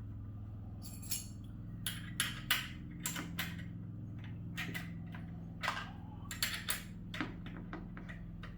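Irregular metal clicks and clinks, about a dozen, from handling hardware and tools while assembling an exercise bike, over a steady low hum.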